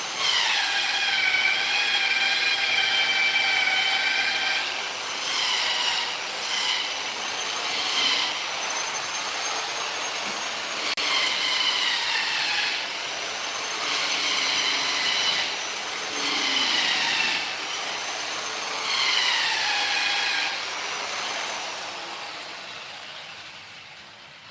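Handheld electric polisher whining as it works a wooden tabletop. Its pitch drops each time it bears down, near the start and twice more later, and it fades out near the end.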